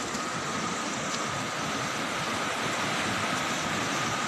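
Flooding river rushing steadily, a continuous loud noise of fast, muddy floodwater, with a faint steady high tone above it.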